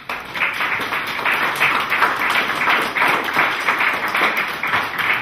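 Audience applauding: many hands clapping together, starting abruptly and keeping up steadily.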